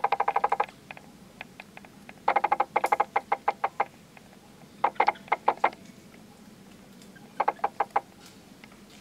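Baby long-tailed macaque calling in quick runs of short, squeaky pulses, four runs of chattering squeaks with short pauses between them.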